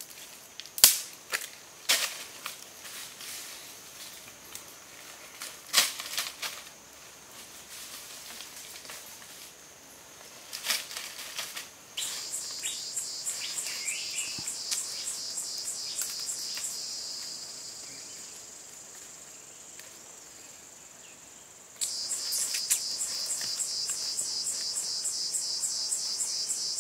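Cicadas in the forest set up a loud, rapidly pulsing high-pitched drone that switches on abruptly about twelve seconds in, fades after a few seconds, and starts again abruptly near the end. Before that come a handful of sharp, separate snaps or clicks.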